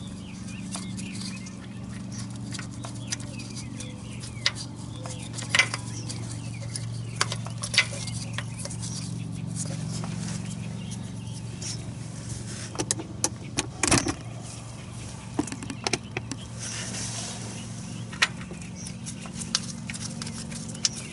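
Scattered metallic clicks and knocks of hand tools and parts while a new oil pressure switch is fitted and threaded into the engine, over a steady low hum. The clicks come thickest about two thirds of the way through.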